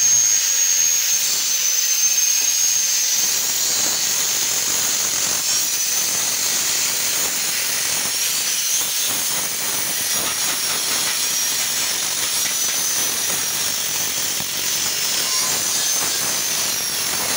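Electric angle grinder grinding steel: a steady hiss with a high whine whose pitch wavers up and down as the disc bites.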